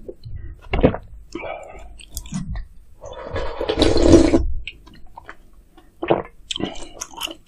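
Close-miked eating sounds of a person having spicy meat gukbap: chewing, with wet mouth clicks and smacks, and a longer, louder stretch of eating about three seconds in.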